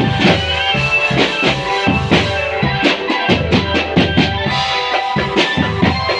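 Marching drum band playing: drums beat a steady rhythm under held melodic notes, with a quick run of drum strokes near the middle.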